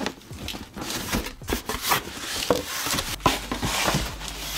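Cardboard packaging being handled: cardboard rubbing and scraping, with scattered light knocks, as the box is pulled and shifted.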